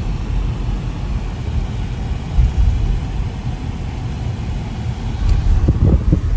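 Steady low rumble of a car driving, heard from inside the cabin: engine and tyre noise on a wintry road.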